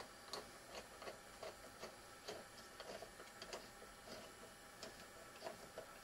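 Faint, irregular small metal clicks, about two a second, from a nut being screwed by hand along the threaded eye bolt of a tap splitter to tighten it.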